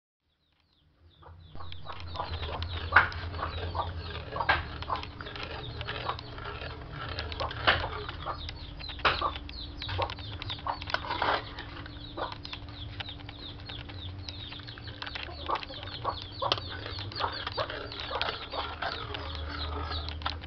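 Metal spatula stirring corn soup in a wok, with many sharp taps and scrapes against the pan over a steady low hum, starting about a second and a half in.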